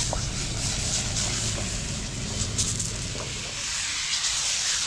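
Steak sizzling in a hot frying pan over a wood campfire, a steady hiss.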